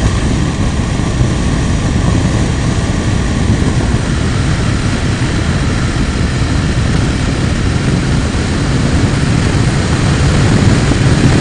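Motorcycle riding at road speed: the engine running steadily under a heavy rush of wind noise on the microphone.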